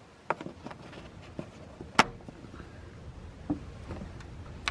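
Plastic push-pin retainers being pressed back into a Jeep Wrangler JK's plastic grille, giving a series of short sharp clicks, the loudest about two seconds in.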